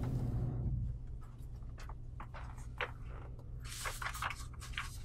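Low steady hum of a small room with scattered light clicks, knocks and rustles of people moving about and handling objects, a brief cluster of them about four seconds in.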